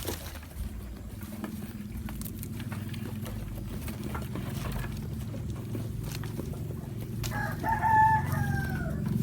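A rooster crows once near the end, a drawn-out call that falls in pitch as it ends, over a steady low hum and scattered faint clicks.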